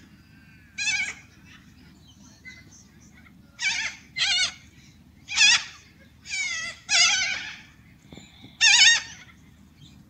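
Flock of corellas (white cockatoos) calling: about seven short, wavering calls spread through, each under half a second, with the loudest near the middle and near the end.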